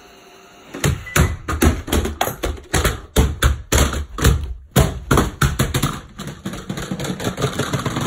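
Ecovacs Deebot robot vacuum tumbling down carpeted stairs after a kick: a long, uneven run of thuds and knocks, several a second, starting about a second in and ending as it comes to rest upside down on a wood floor.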